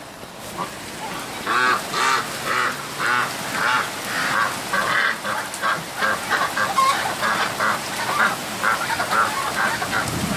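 Ducks calling over and over in quick short calls, several a second, starting about a second and a half in, with steady rain falling.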